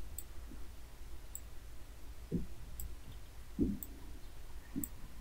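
Computer mouse clicking: about five faint, sharp clicks roughly a second apart, with three soft low thumps in the second half over a faint steady low hum.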